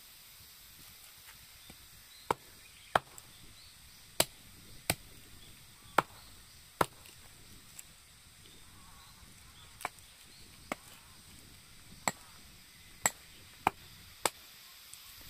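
A series of sharp knocks, about fourteen, at irregular intervals of roughly half a second to a second and a half.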